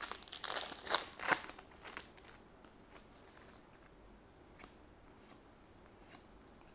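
Plastic booster-pack wrapper being torn open and crinkled, loudest in the first second and a half. After that come fainter, scattered rustles and flicks as trading cards are slid one behind another in the hand.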